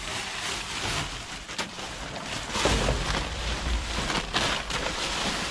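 Wind buffeting the microphone: a steady rushing noise with gusts of low rumble, the strongest about halfway through, and a few faint knocks or rustles among it.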